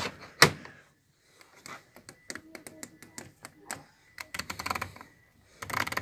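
Hands working a Miele Distinction 3000 washing machine: a sharp knock about half a second in as a part of the machine is shut, then a run of small clicks as the programme selector dial is turned through its settings.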